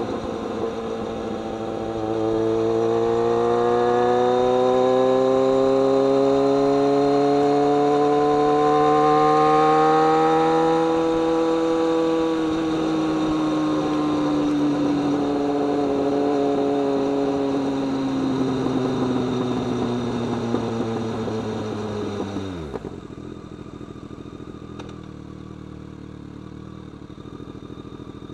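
BMW K1200R motorcycle's inline-four engine under way, its note climbing steadily for several seconds as it accelerates, then easing slowly. A little over twenty seconds in, the note drops away suddenly and the engine runs on much quieter and lower.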